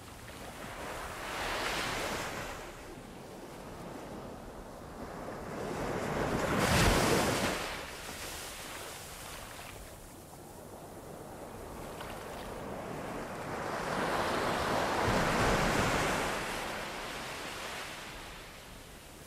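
Sea waves surging and breaking on the shore: three swells of surf, the loudest about seven seconds in.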